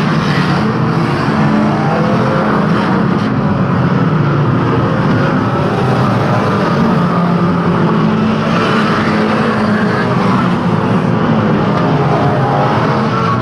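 A pack of banger racing cars' engines running hard together, a loud, steady mix of revving engines with no let-up.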